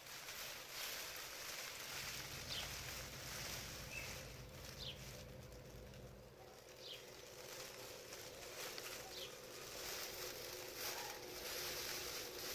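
Quiet outdoor ambience: a steady soft hiss with a few short, faint bird chirps scattered through it.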